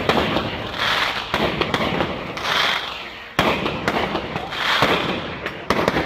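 Aerial firework shells bursting one after another with sharp bangs every second or two, between them a constant crackle and fizz from the burning stars.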